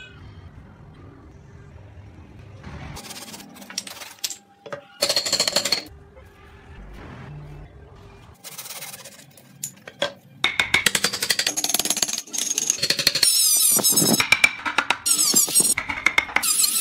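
Wooden blocks handled on a workbench with a few short knocks and scrapes, then, from about ten seconds in, a chisel cutting into wood in a dense run of rapid strokes.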